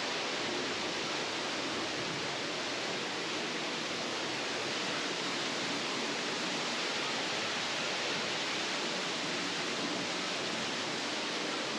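Steady rush of water from a small waterfall on the River Lathkill, an even hiss without change.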